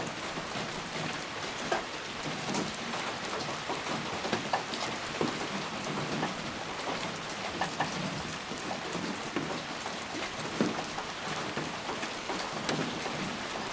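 Steady rain falling: an even hiss with many separate drop hits standing out close by.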